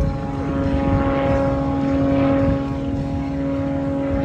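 Aerobatic biplane's piston engine and propeller droning at a steady, unchanging pitch, with soft swells of rushing noise over it.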